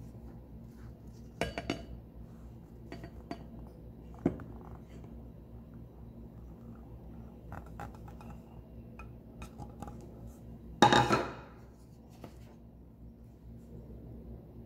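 Kitchen bowls and utensils clinking and knocking against a glass mixing bowl and the counter: a few sharp knocks near the start, then one louder, brief clatter about eleven seconds in as ingredients are tipped into the bowl.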